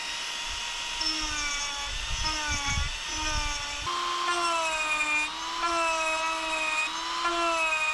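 Small high-speed rotary tool running with a steady whine, its pitch dropping and rising in steps several times as it is pressed into the work, with a few low thuds near the middle.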